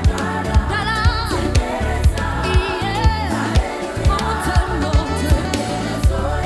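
Gospel worship song played by a live band with singers: drums keep a steady beat of about two strokes a second under keyboard chords, while a lead line sings wavering, ornamented runs about a second in and again around the middle.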